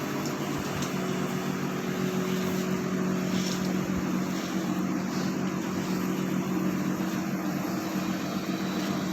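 Steady low machine hum with an even hiss of air, unchanging throughout.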